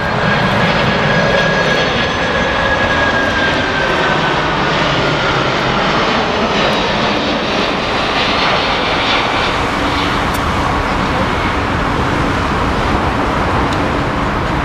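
Boeing 747-400 jet airliner on final approach, its four turbofan engines giving a steady loud jet roar. A high whine slowly falls in pitch over the first few seconds.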